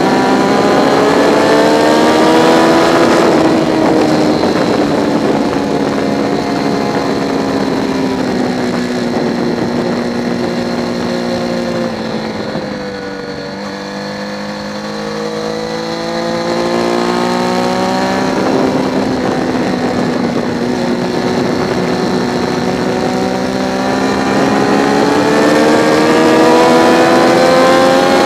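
Triumph Daytona 675's inline three-cylinder engine at speed on a race track, with wind noise. The revs climb, then fall off steadily as the bike slows to its lowest point about halfway through, then climb steadily again.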